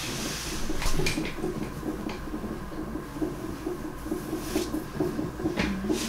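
Fetal heart monitor at the labour bed, its loudspeaker giving out the baby's heartbeat as a quick, even pulse, with a few light clicks of handling.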